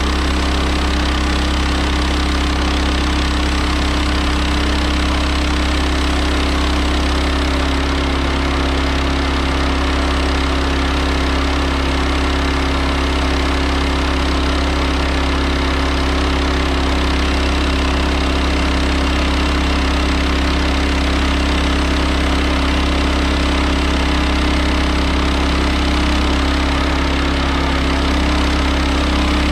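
Engine of an HM130 portable bandsaw mill running at a steady speed, a constant low hum with steady tones above it and no change in pitch.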